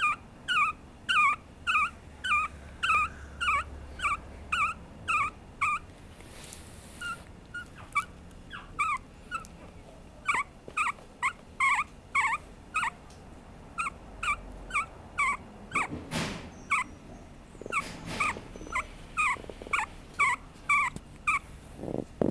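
Papillon puppy whimpering in a steady run of short, high-pitched cries, about two a second, each bending down in pitch. They break off briefly about a third of the way through, and a couple of rustling handling noises come in about three-quarters of the way through.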